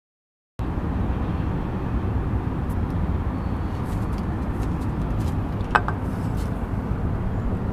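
Steady outdoor city rumble of distant traffic, starting abruptly about half a second in. A single brief, high squeak cuts through it near the six-second mark.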